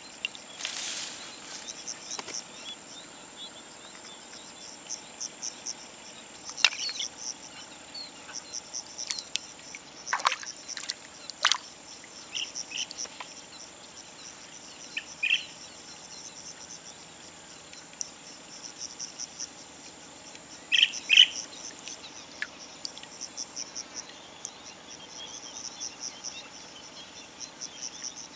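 Insects chirping in rapid pulses over a steady high buzz, with a few short bird calls, the loudest a pair about two-thirds of the way through. A few sharp clicks sound in the first half.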